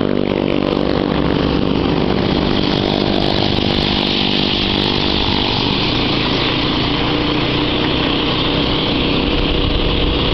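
Small motorcycle engine running steadily while riding, its note shifting a little midway, with low wind rumble on the microphone.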